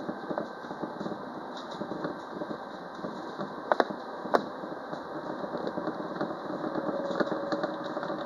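Alstom Citadis Dualis tram-train running, heard from the driver's cab: a steady running noise with frequent small clicks and rattles, two sharp knocks about four seconds in, and a faint steady whine near the end.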